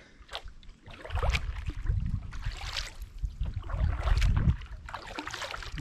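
Double-bladed kayak paddle strokes: the blades dip and pull through the water several times, with splashing and dripping.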